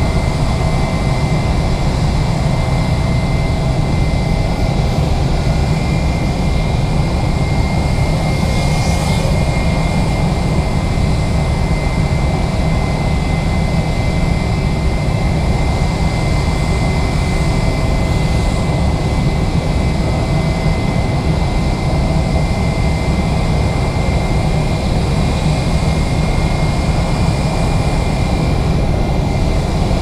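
Steady jet aircraft engine noise: a constant low rumble with a thin, steady high whine, unchanging throughout.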